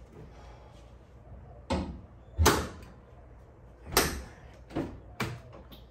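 A series of five sharp knocks and clunks of hard parts being handled, the loudest two about two and a half and four seconds in.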